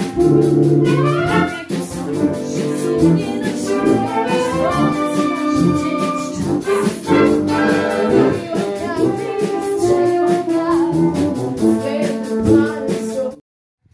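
Wind band playing, with trumpets and trombones to the fore; the music cuts off suddenly near the end.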